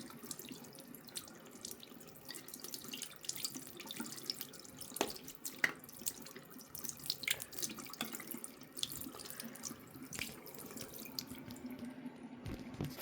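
Tap water running into a sink over a disassembled hard drive, a low steady trickle with scattered drips and small splashes.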